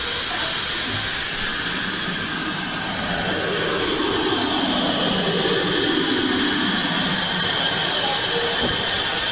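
Suction pickup of a candy vending machine running: a steady loud rushing hiss with a thin high whine, as the vacuum head lifts a wrapped lollipop and carries it to the prize chute. A lower tone slides down in pitch in the middle as the head moves.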